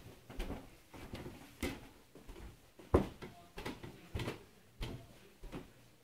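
Nightingale floor (uguisubari) squeaking and chirping under a person's footsteps, one short squeak or creak with each step at a steady walking pace, with one louder step about halfway. The squeak comes from iron nails rubbing in the mechanism beneath the floorboards, built as an alarm against intruders.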